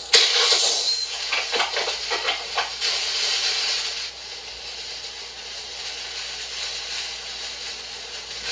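Rocket-thrust sound effect: a sudden loud hissing rush with crackles through it, settling after about four seconds into a softer steady hiss.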